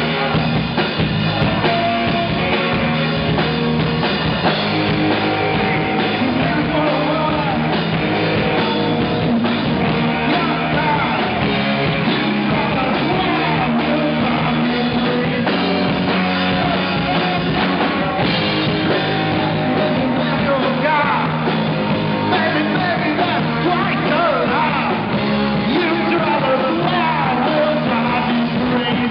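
Live rock band playing: electric guitars, electric bass and a drum kit, with a man singing lead vocals over them.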